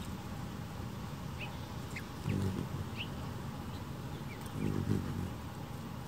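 Hummingbird wings humming low in two short passes, about two seconds in and again near five seconds, as the bird flies in close. Several brief, thin, high chip notes come in between.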